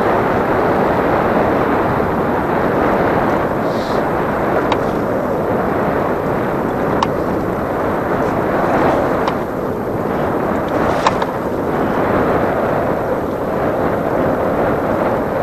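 Steady rush of wind and sea noise on the microphone, with a few light sharp ticks.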